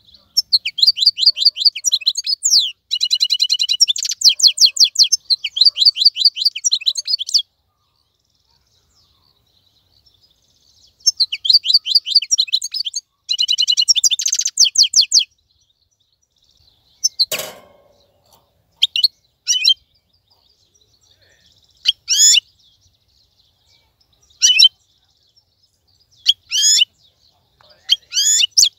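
Wild-caught European goldfinch singing: two long bursts of fast, high twittering song, then a sharp click, then single short call notes every couple of seconds.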